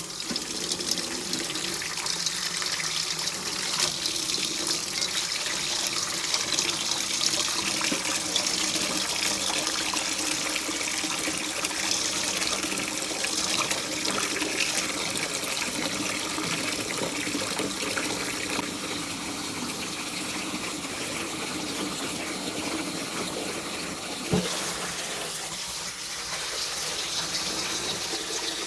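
Tap water running and splashing steadily into a stainless steel sink bowl while a T-shirt is rinsed of bleach by hand. One short thump comes near the end.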